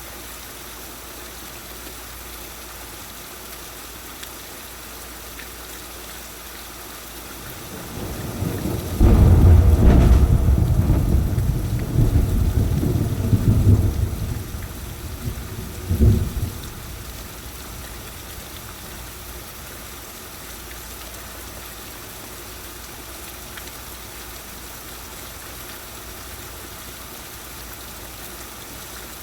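Heavy rain falling steadily, with a loud, deep roll of thunder that builds about a quarter of the way in, lasts several seconds and dies away, followed shortly after by one short, sharp clap.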